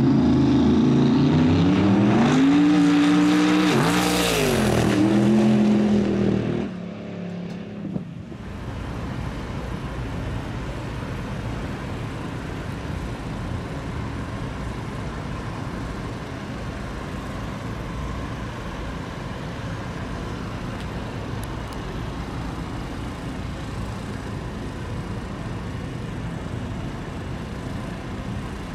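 A drag-racing pickup truck's engine revving hard at the starting line during a burnout, its pitch climbing and dropping several times for about six seconds before fading. After that, a steady, quieter background noise.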